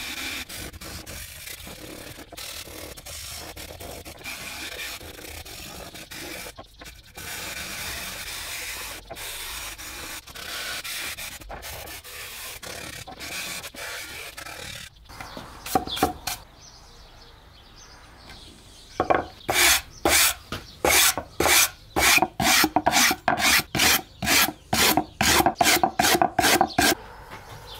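Hand brush scrubbing the charred surface of a pine board, brushing away the loose char in the shou sugi ban finish. Steady scrubbing at first; from about two-thirds through, loud, quick regular strokes, about two or three a second.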